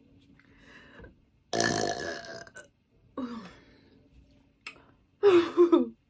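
A woman burping three times: a long, loud burp about a second and a half in, a short one with a falling pitch around three seconds, and another loud one near the end.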